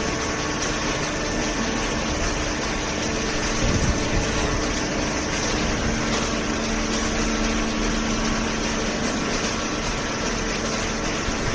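Hydraulic baler's electric motor and pump running steadily, a continuous machine hum whose tone shifts partway through.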